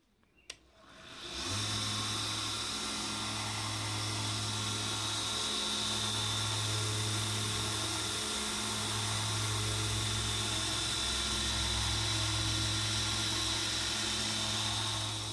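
Harbor Freight 1x30 belt sander fitted with new idler-wheel bearings and trued wheels. After a click, its high-speed motor spins up within about a second, then runs loud and steady: a low hum under a steady high whine. It is running smoothly, without vibration.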